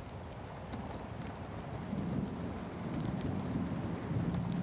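Steady rainstorm ambience, rain falling evenly, with a low rumble that swells from about two seconds in.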